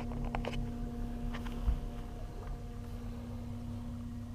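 Minn Kota Ultrex 112-lb-thrust bow trolling motor running under autopilot, a low steady hum as it pulls the boat toward a GPS waypoint against a stiff current. A soft thump comes about a second and a half in.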